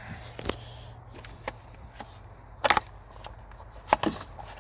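A few scattered sharp knocks and clicks of hard parts being handled, the two loudest about two and three-quarter seconds in and about four seconds in, over a faint low steady hum.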